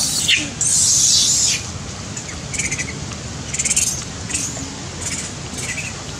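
High-pitched animal calls: one long, loud squeal about half a second in, then about five short chirping calls spread over the next few seconds.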